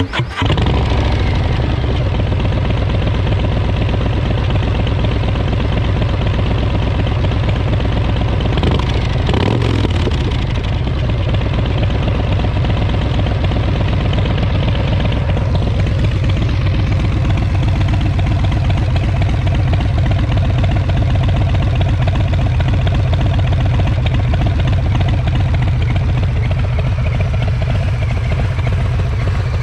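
Harley-Davidson Street Bob 114's Milwaukee-Eight V-twin running through Vance & Hines Short Shots exhaust fitted with quiet baffles, mostly steady, with a brief swell about nine seconds in.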